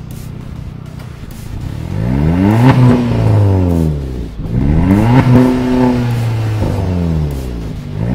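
Volkswagen Polo 1.2 GT TSI's turbocharged four-cylinder petrol engine through a T8 Performance aftermarket exhaust, idling and then revved twice. Each blip rises in pitch and falls back to idle, the second held a moment longer, and a third rev begins near the end.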